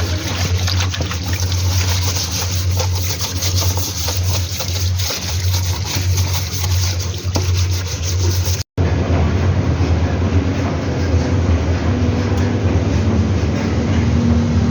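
Washing machine running: a steady low hum with noisy churning over it. The sound drops out for an instant partway through, then comes back as a steadier hum.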